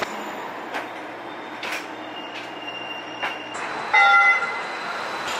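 Steady running noise inside a moving QLine streetcar, with a few sharp knocks. About four seconds in comes a short horn toot of several tones at once, lasting about half a second and the loudest sound here, from a QLine streetcar approaching along the street.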